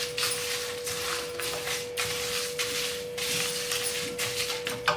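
A spatula stirring roasted niger seeds and dried red chillies in a steel pan: a dry, grainy scraping rustle that repeats with each stroke, about two or three times a second. A faint steady hum runs underneath.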